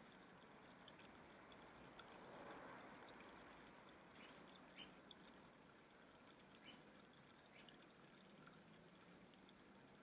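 Near silence: a faint steady background hiss, with a few faint short high chirps of small birds scattered through the second half.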